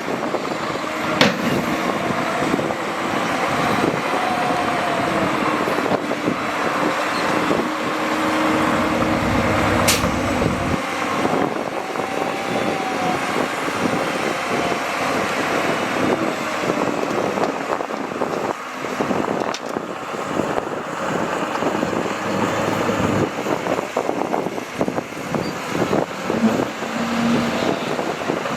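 Diesel engines of heavy earthmoving machinery running steadily. A single sharp click comes about ten seconds in, and a deep low rumble cuts off abruptly about a second later.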